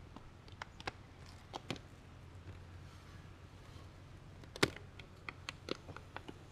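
Faint, scattered small clicks and taps of hands working at an open wooden beehive, tucking insulation in along the edge of the box, with one sharper knock about four and a half seconds in.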